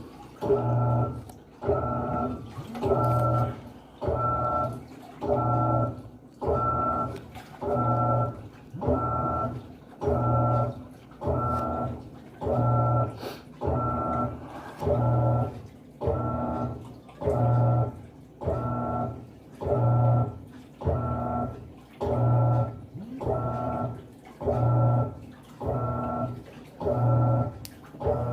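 Panasonic 14 kg top-loading washing machine agitating in the rinse, its motor humming in short strokes a little more than once a second as the pulsator drives back and forth.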